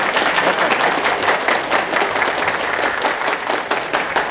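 A large group of people applauding, dense continuous clapping in welcome.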